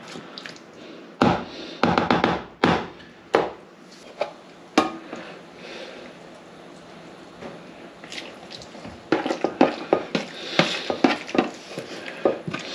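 Spoon stirring an egg and sour-cream mixture in a dish: irregular knocks and scrapes against the dish, a quieter stretch in the middle, then a quick run of clinks near the end.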